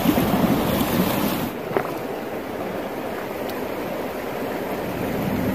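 River water rushing and sloshing close to the microphone as a large pikeminnow is lowered into the current and released by hand, with some wind noise on the microphone.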